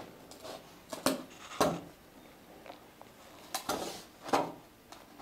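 Sharp knocks and clatter of a thin plywood plank pattern being handled and tapped against a wooden boat stem and its clamps: a pair about a second in, then a quick cluster about three and a half to four and a half seconds in.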